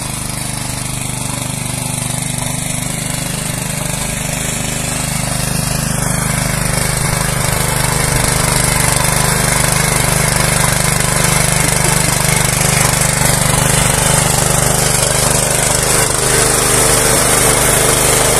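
Petrol walk-behind cultivator (motoblock) with a single-cylinder engine running under load while its tines churn through garden soil: a steady engine drone that grows gradually louder.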